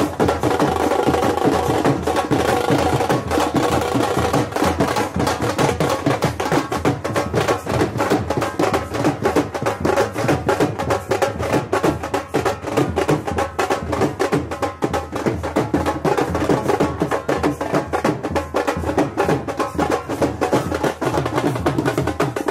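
Music with fast, dense drumming under a steady melody.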